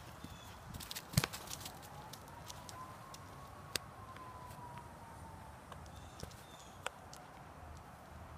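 A faint distant siren, one slow wail that rises and then falls in pitch over several seconds. A few sharp clicks and knocks sound over it, the loudest about a second in.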